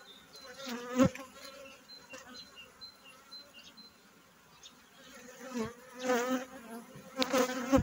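Honeybees buzzing around an open hive, with single bees flying close past the microphone so that the buzz wavers up and down in pitch and grows louder near the end. A sharp knock about a second in.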